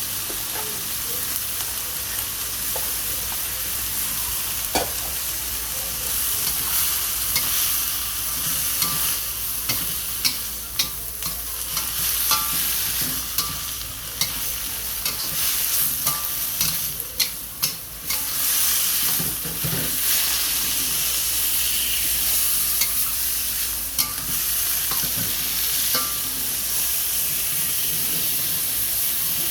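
Food sizzling in a hot pan with a steady hiss while it is stirred, with repeated sharp clicks and scrapes of a utensil against the pan, busiest in the middle.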